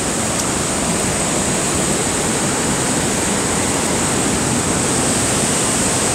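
Loud, steady rushing of white water in the Niagara River below Niagara Falls.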